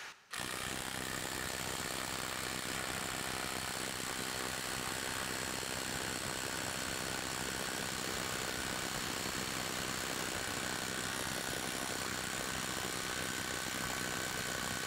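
Hart HPIW25 20-volt brushless 1/2-inch mid-torque impact wrench hammering continuously on a bolt under load for about 15 seconds, at an even level throughout.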